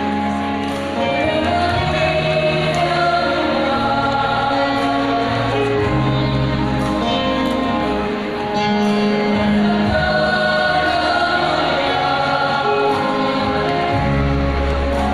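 A choir singing a Christian song in several parts, sung notes held and changing in steps over sustained low notes, amplified through the hall's loudspeakers.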